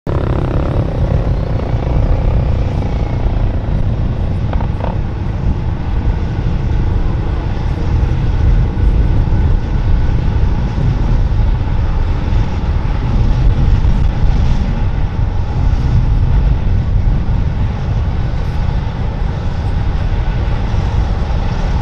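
Medical helicopter running on the ground with its main rotor turning: a steady, loud low rumble of turbine and rotor.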